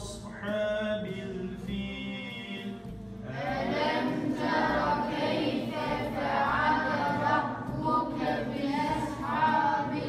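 A choir singing a song, with the singing growing fuller and louder about three seconds in.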